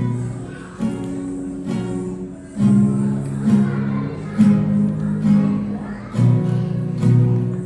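Acoustic guitar strummed in chords, a fresh strum about once a second at a steady pace, with the chord changing every few strums.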